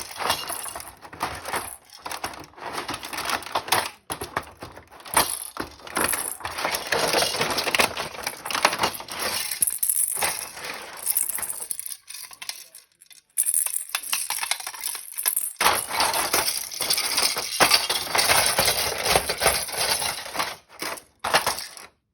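Plastic toys and packaging being handled: continuous crinkling and rustling with small clicks and clinks, stopping briefly a few times and ending abruptly near the end.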